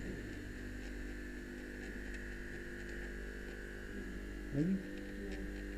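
Steady electrical hum with several even, unchanging tones and a faint higher whine; a short voice sound about four and a half seconds in.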